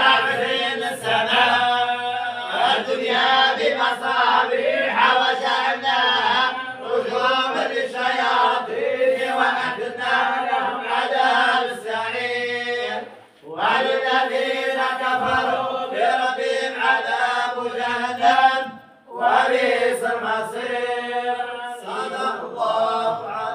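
A group of talba chanting Quran recitation together in unison in long, sustained phrases. They break off briefly twice before resuming.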